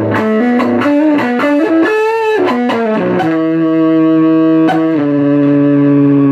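Electric guitar played through the Parks Deluxe Blues Howler, a hand-built tube amp with an EF86 pentode first preamp tube: a quick run of picked single notes, a note shaken with vibrato about two seconds in, then a chord struck and left ringing.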